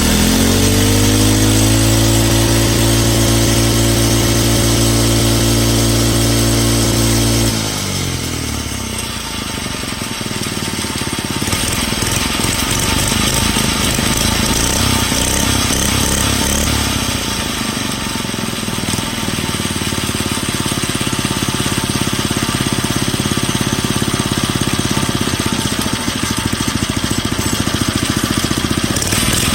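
Pocket bike engine revved up and held at a high steady speed for about seven seconds, then dropping back to idle for the rest.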